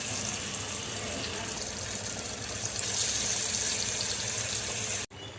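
Kitchen tap running in a steady stream of water, stopping abruptly near the end.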